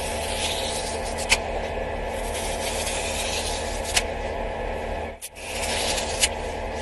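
A small blade slicing down through thread wound tightly on a spool, a steady scratchy cutting sound. A few sharp ticks stand out, and it breaks off briefly a little past five seconds in.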